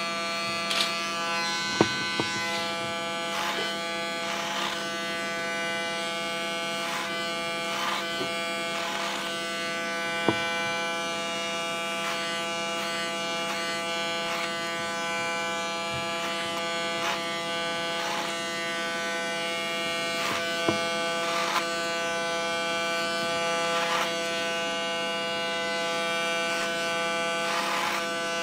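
Electric hair clippers running with a steady buzz while cutting hair short at the nape, with a brief rasp each time the blades pass up through the hair, about every one to two seconds. A few sharp clicks stand out, one about two seconds in.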